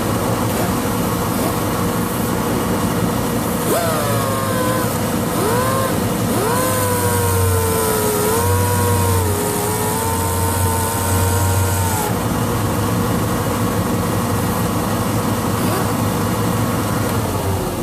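Electric grinder running with a trimmed zip cutoff disc whose edge is being ground against a table edge to true it round. From about 4 to 12 seconds the motor pitch sags and wavers under the load, with a hissing grind. The motor then runs free and its pitch falls away near the end as it winds down.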